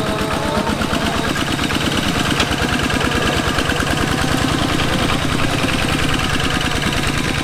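Two-wheel walking tractor's single-cylinder diesel engine chugging with a rapid, even beat as it pulls a loaded trailer.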